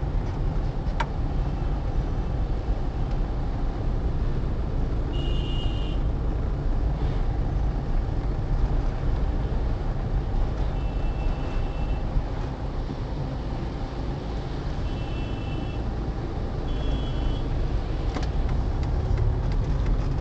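Steady low rumble of slow-moving road traffic, engines and tyres on a wet road, heard from inside a car. There are four short horn toots from surrounding vehicles and a couple of sharp clicks.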